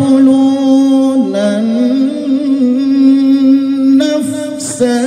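Male qari reciting the Qur'an in melodic tilawah style, drawing out a long ornamented note in a high voice. The pitch dips about a second in, climbs back, and wavers through small embellishments.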